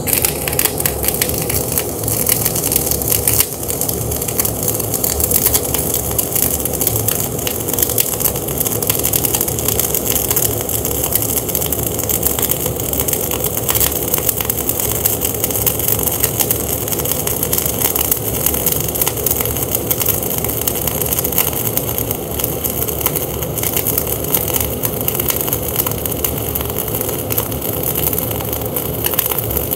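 Gas-shielded flux-cored arc welding on a fill pass in a V-groove plate joint: the arc of .045 Bohler Diamond Spark 52 RC wire under 75/25 argon-CO2 gas crackles and sizzles steadily and without a break, run at 22.5 volts and 360 wire feed speed.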